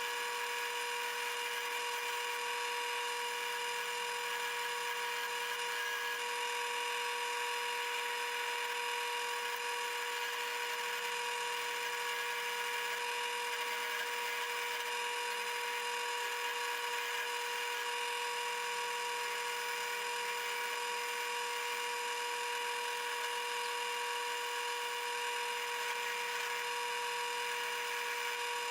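A small electric motor running at a steady speed, a constant high whine that holds the same pitch throughout.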